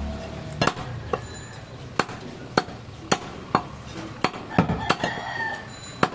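Heavy butcher's cleaver chopping goat meat and bone on a wooden chopping block: about a dozen sharp chops, roughly two a second, in an uneven rhythm.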